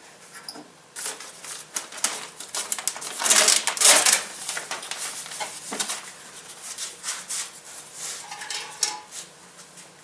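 Plastic water-shield sheet on a pickup's door crinkling and crackling as it is peeled away from the inner door skin, in irregular rustles, loudest about three to four seconds in.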